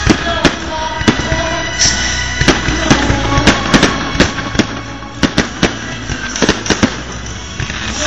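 Fireworks going off in an irregular run of about twenty sharp bangs, two or three a second, with music playing steadily underneath.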